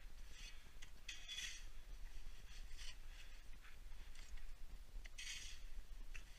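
Dry snow crunching and scraping in short, irregular strokes, some louder than others.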